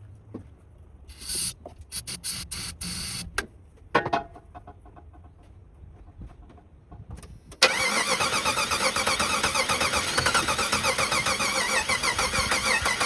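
A few short hissing bursts of an aerosol starter-fluid can sprayed into the intake. Then, about seven and a half seconds in, the starter cranks the 1991 Jeep Wrangler's 4.0-litre straight-six steadily for about five seconds without the engine catching. It will not fire even on starter fluid, a sign of no spark.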